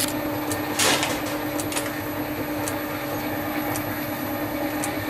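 Felt-tip marker scratching as it traces around the spokes of an aluminium wheel casting pressed against MDF, with one louder scrape about a second in and a few light clicks, over a steady machine hum.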